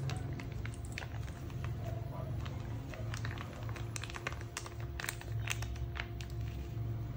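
A clear plastic bag crinkling and crackling in the hand, in a quick run of small clicks, as thick surfactant is squeezed out of it into a basin of water. Background music plays throughout.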